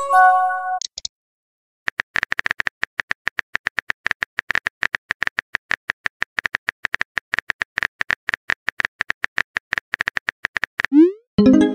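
Text-message app sound effects: a short multi-note chime as a message arrives at the start, then rapid phone-keyboard tapping clicks, then a quick rising swoosh and another chime near the end as the next message is sent.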